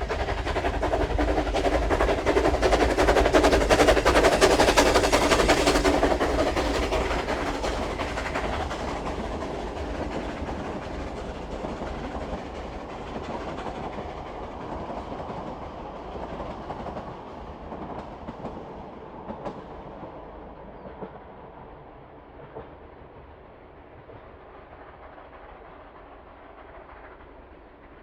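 Steam train going past, loudest a few seconds in, then fading steadily into the distance as it moves away.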